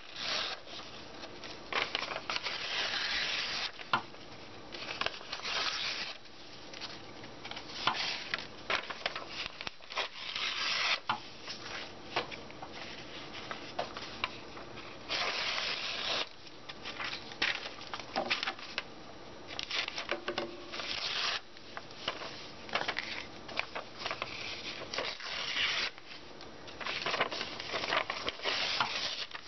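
Thin printed book paper being torn by hand and rustled, in repeated irregular rips of about half a second to a second and a half with short pauses between.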